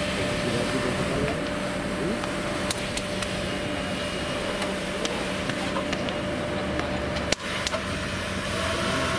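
A motor running steadily under a rushing background noise, with a few faint clicks and one sharp tick about seven seconds in.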